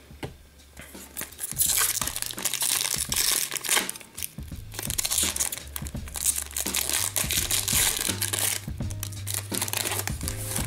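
Foil-lined hockey card pack being torn open and its wrapper crinkled by hand, in two long stretches of crackling, the second starting about five seconds in.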